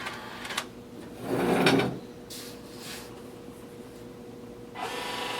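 A sliding knock and a few light clicks, then near the end a steady electrical hum starts up as the snack vending machine is powered back on.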